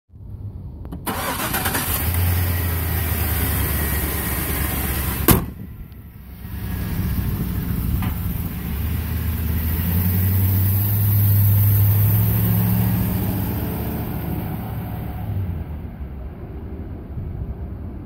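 Chevrolet Silverado 2500HD's Vortec gasoline V8 running, with a single sharp bang about five seconds in. The engine then pulls away, its pitch rising, and fades as the truck drives off.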